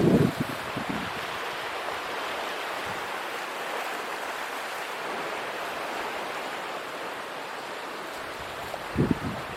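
Steady rush of strong wind and rough sea surf. Wind buffets the microphone with low rumbles at the start and again briefly near the end.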